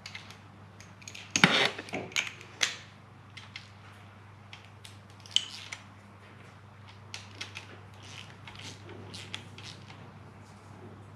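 Hand tools on an engine block: a steel socket on a long extension bar clinks and knocks as it is fitted onto an earth strap bolt, with a run of quick clicks later on as a ratchet is fitted and worked to tighten it. The loudest knocks come in a cluster a second or two in.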